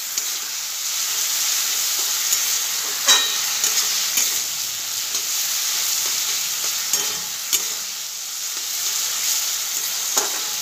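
Sauce-coated onion and capsicum sizzling steadily in a hot wok while a spatula stirs and scrapes them around the pan. A few sharp clicks of the spatula against the metal, the loudest about three seconds in.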